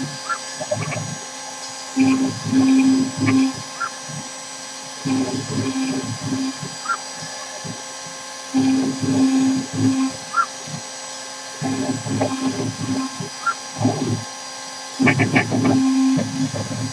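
CNC router with a rotary fourth axis machining a wooden turkey box call. The router spindle runs with a steady whine, and about every three seconds a louder, low passage of cutting with a steady motor hum lasts a second or so as the machine makes another pass.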